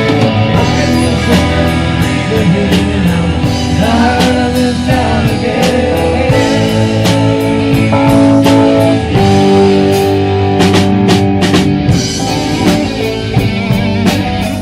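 Live rock band playing: a drum kit keeps a steady beat under electric guitar.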